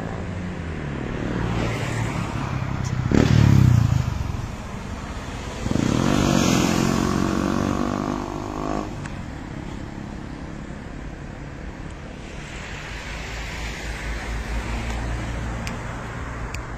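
Street traffic, with motor vehicles passing close by. The loudest pass comes about three to four seconds in, and another vehicle with a clear engine note goes by from about six to nine seconds.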